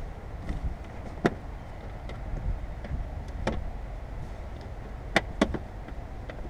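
Plastic cowl moulding clips being pressed into place at the base of a car windshield: four sharp clicks, the last two close together, over a low steady rumble.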